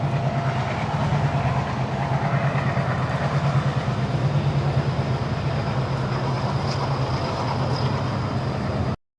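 Steady low rumble of a passing vehicle with a fast rattling flutter, cutting off abruptly near the end.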